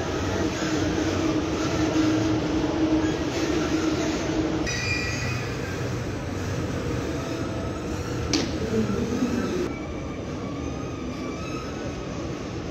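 DB class 101 electric locomotive at the platform, its machinery humming steadily. About five seconds in, the low tone drops away and thin higher whining tones come in. A sharp metallic clank sounds about eight seconds in.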